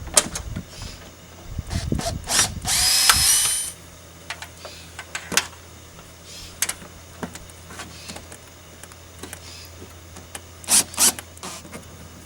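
A power drill runs for about a second, its pitch shifting, after a few knocks and clicks of handling. Scattered clicks follow, with two sharp clicks near the end over a steady low hum.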